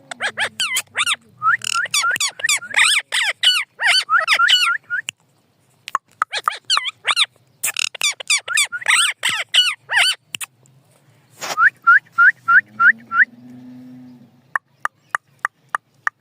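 Parrot calling in quick runs of short, shrill chirps and squawks, pausing briefly about five seconds in. A run of short rising chirps follows around twelve seconds, then a few sharp clicks near the end.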